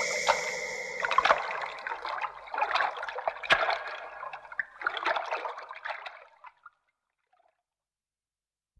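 Foley UFO sound effect: a steady hum with several high held tones fades out in the first second, giving way to irregular crackling, trickling noise in clusters that dies away after about six and a half seconds.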